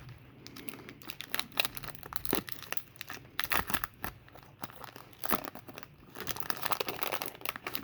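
Baseball card pack wrapper crinkling and crackling in irregular bursts as the just-opened pack is handled and the cards are pulled out.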